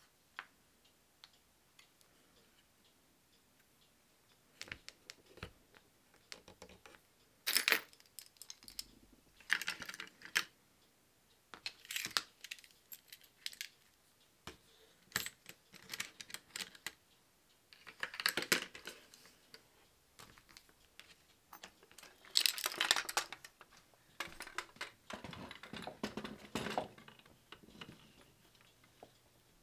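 Keys and metal keyrings clinking and jangling as they are handled and hung on the metal pegs of a small wooden key rack, in irregular bursts of clicks, with some rustling of sticker sheets.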